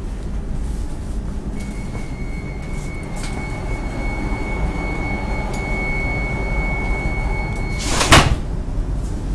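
Steady high-pitched warning tone of an ASEA X10 commuter train's doors, sounding for about six seconds over a low rumble. The tone cuts off as the sliding doors shut with a sharp thump near the end.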